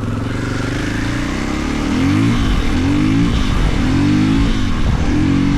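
Husqvarna FE 450's single-cylinder four-stroke engine running under the rider, holding steady at first. From about two seconds in, its revs rise and fall several times in quick succession and it gets louder.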